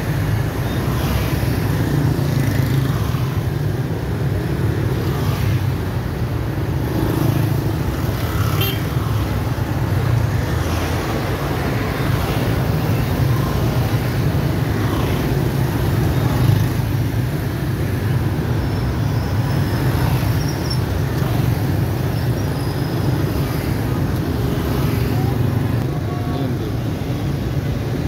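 Dense street traffic, mostly motorbikes and scooters with some cars, as a steady engine rumble with individual engines passing close by.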